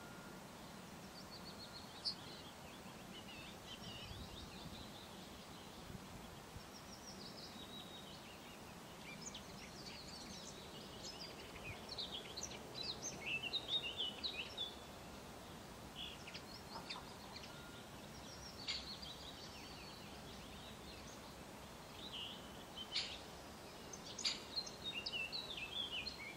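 Small songbirds chirping and singing, several overlapping short calls, busiest about a third of the way in and again near the end, over a steady outdoor hiss.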